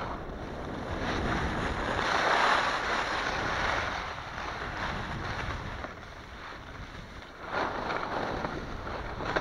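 Snowboard sliding and carving over crunchy packed snow, a scraping hiss from the board's edge mixed with wind rushing over the microphone. It swells about two seconds in, eases off in the middle and comes back sharply near the end.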